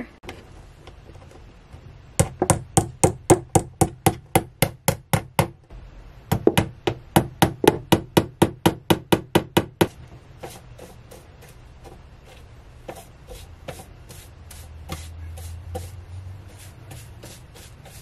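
A small hammer tapping nail-in wire clips into a camper's thin wall panel: two quick runs of sharp taps, about four a second, each lasting a few seconds. After that come fainter, slower strokes of a paintbrush along the wire.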